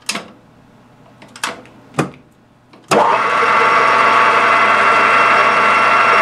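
A few sharp clicks, then about three seconds in a small metal lathe switches on and its spindle runs up to speed. It then runs steadily with a hum and a whine from the motor and gearing.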